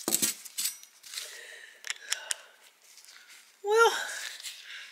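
Scattered light clicks and scrapes of a screwdriver tightening a metal clamp on a stovepipe, a few with a short metallic ring.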